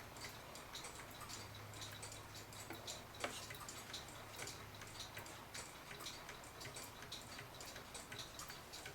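Pendulum movement of a 1915 Seth Thomas Adamantine mantel clock ticking with quick, regular ticks, its beat being set by bending the crutch wire, and judged a lot better. One louder click comes about three seconds in.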